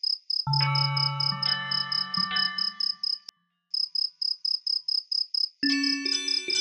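Cricket chirping, a steady high pulse about four times a second, as a night ambience. Held musical tones sound over it for the first three seconds, the sound drops out briefly just after, and the chirping returns with new musical notes coming in near the end.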